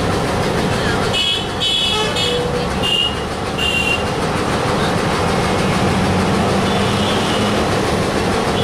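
Bangladesh Railway diesel locomotive's engine running beside the platform with a steady loud rumble. Several short, high-pitched horn toots come about a second in and up to about four seconds in, and again briefly near the end.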